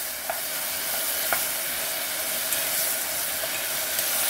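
Diced beef sizzling as it is stir-fried in sesame oil in a pot: a steady frying hiss with a few light clicks from the stirring.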